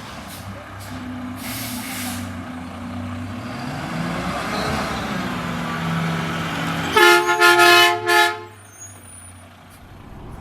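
A passing truck's engine running and rising in pitch, then its air horn sounding several tones at once in about four short, loud blasts about seven seconds in.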